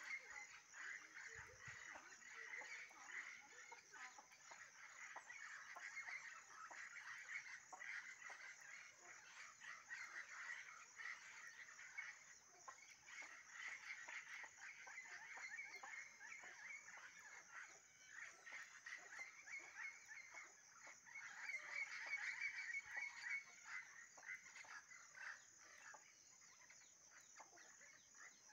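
Faint wildlife chorus from tropical scrub and palm forest: a dense mass of rapid chirping calls over a steady high-pitched drone, swelling louder a little past the middle.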